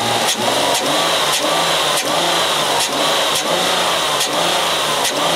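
A 2005 Mercury Sable's 3.0-litre V6 engine is being revved up and down in quick repeated throttle snaps, roughly twice a second. The snaps force a rich mixture to test whether a downstream oxygen sensor stuck at a lean reading will respond.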